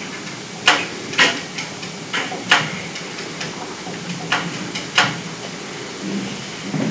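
Pen strokes and taps on notebook paper while drawing graph axes and a curve: a series of short, sharp scratches and clicks at irregular intervals.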